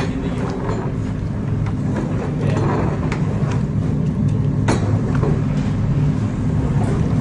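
Steady low rumble of commercial kitchen equipment, the large gas stove burners and overhead extractor hood, with a few faint clicks, the clearest about five seconds in.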